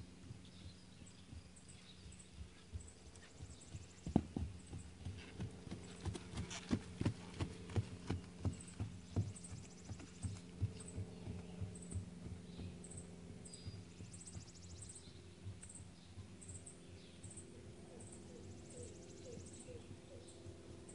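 Hoofbeats of a ridden horse on grass: a run of dull thuds, about two to three a second, that grow loud about four seconds in as the horse passes close and fade away after about twelve seconds.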